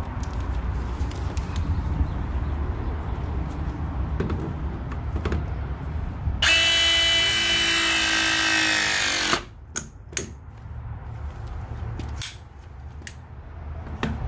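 A RIDGID 18-volt cordless press tool runs one press cycle, crimping a press fitting onto copper water pipe. Its motor whines steadily for about three seconds, starting about halfway through, then winds down and stops. Before and after come a few light knocks over a low steady rumble.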